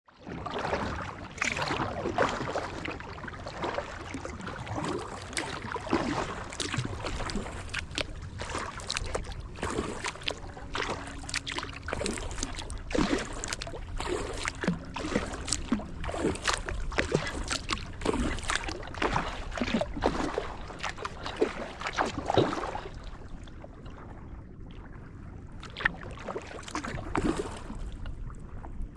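Kayak paddle strokes splashing and dripping in the water, irregular but frequent. The splashing eases off and grows quieter about three-quarters of the way through.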